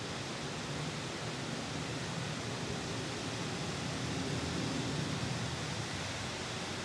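Steady rush of running water, like a waterfall or stream, swelling slightly about four seconds in.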